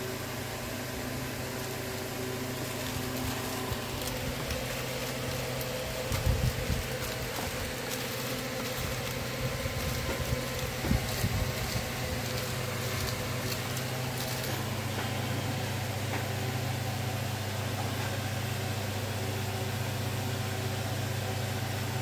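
Steady low mechanical hum of background machinery with a faint hiss, a little louder from about two-thirds of the way in. A few bumps and crackles about six seconds in and again around ten to eleven seconds.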